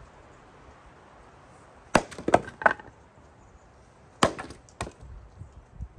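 Wood Bullet splitting axe chopping into firewood rounds twice, about two seconds apart, each sharp chop followed by a couple of lighter knocks of wood.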